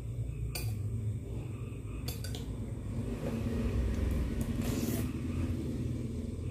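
A metal spoon clicking a few times against a plate and scraping up rice while eating, over a steady low rumble.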